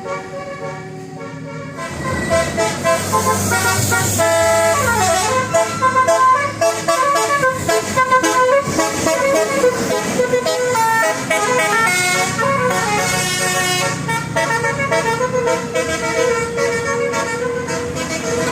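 Bus 'telolet' multi-tone horn playing a fast, changing tune of many notes. It comes in loud about two seconds in, with a falling glide near four seconds, over a low engine hum.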